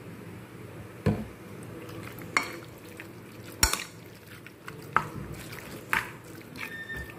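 Metal spoon stirring sliced beef through its marinade in a bowl, clinking against the bowl five times about a second apart.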